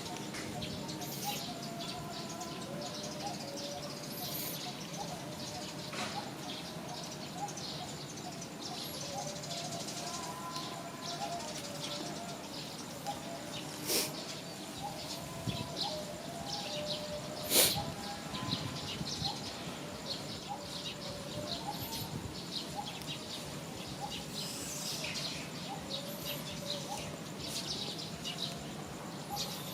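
Birds chirping and calling, with short high chirps throughout and lower wavering calls, and two sharp clicks about halfway through.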